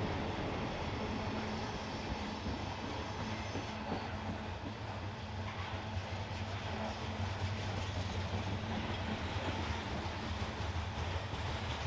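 Freight train cars rolling past with a steady rumble of wheels on rail, and faint rhythmic clicking of wheels over rail joints near the end.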